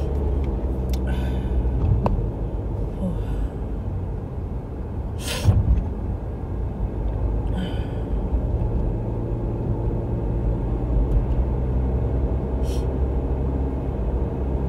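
Steady engine and road rumble heard inside a small car's cabin while driving, with a few short hissing noises, the loudest about five and a half seconds in.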